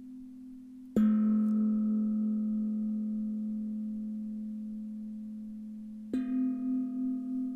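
Singing bowls struck in turn: a lower-pitched bowl about a second in, ringing and slowly dying away, then a higher-pitched bowl about six seconds in, ringing on with a slow wavering beat. The struck tones mark the Qi Gong vowel sounds and movements.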